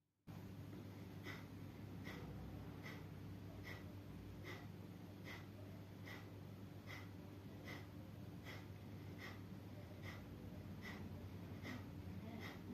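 A person breathing out sharply through the nose in a steady rhythm, about five short breaths every four seconds, over a steady low hum.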